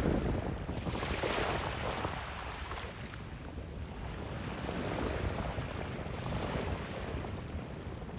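Sea waves washing onto a sandy beach, swelling about a second in and again a few seconds later, with wind rumbling on the microphone.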